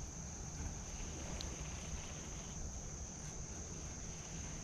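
Steady, high-pitched drone of insects calling, with a low wind rumble on the microphone underneath.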